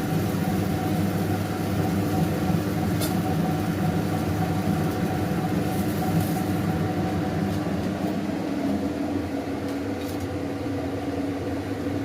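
Steady hum of an electric fan motor running, with a low drone and two or three steady tones over a light hiss, easing slightly in the last few seconds.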